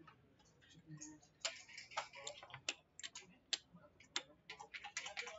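Irregular sharp clicks and clacks of backgammon checkers being picked up and set down on the board, getting quicker and denser about a second and a half in.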